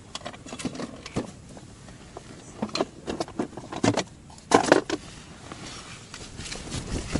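Scattered clicks and metal rattling of gear being rummaged through in a box to get a small gaff hook out, with a cluster of louder clatters around the middle.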